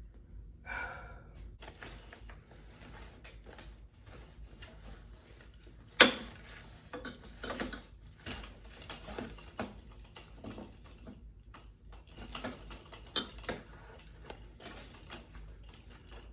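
Bassinet parts being handled and pushed together during assembly: scattered clicks, knocks and rattles, with one sharp knock about six seconds in and a brief squeak near the start.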